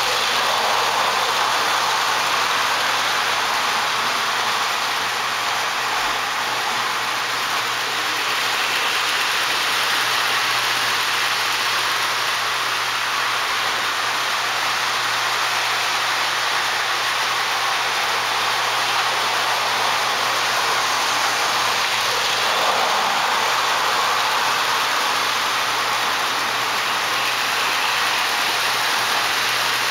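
Several O-gauge electric toy trains running around a layout at once: a steady whir and rattle of motors and wheels on three-rail track, with a low hum underneath.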